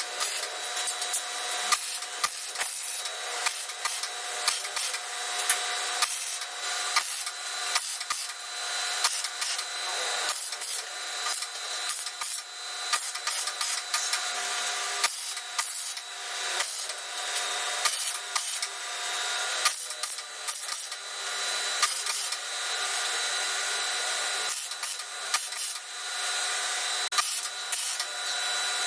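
Metalworking in a workshop: a steady machine whine with frequent sharp clicks and scraping of tools on metal.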